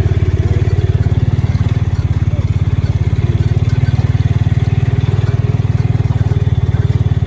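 A vehicle engine running steadily with a fast, even low pulsing; it dies away near the end.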